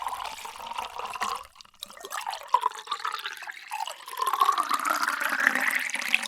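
Water pouring into a container, a first pour tailing off about a second and a half in, then a fresh pour whose pitch rises steadily as the vessel fills.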